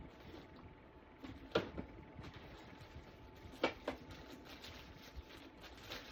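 Quiet handling of a bottle of acrylic craft paint being readied for stirring: two pairs of short light clicks or taps, about two seconds apart, over low room tone.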